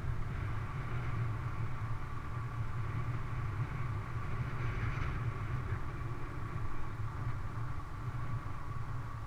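Steady low rumble of wind buffeting the camera microphone and the knobby fat-bike tyres rolling on asphalt while riding, with a steady mid-pitched hum running through it.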